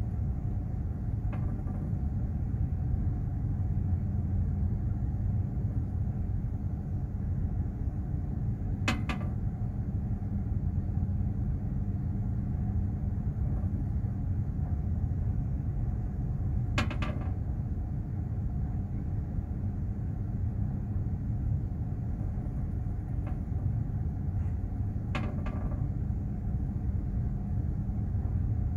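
Steady low rumble and machinery hum of a container ship under way at sea, with a constant drone held underneath. Three short sharp knocks come about eight seconds apart.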